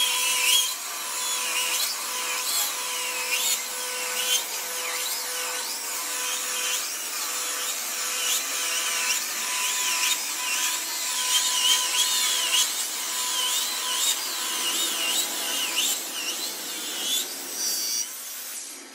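Electric cut-off saw cutting into a slab of cẩm lai rosewood, a steady motor whine under the rasp of the blade in the wood. It stops near the end.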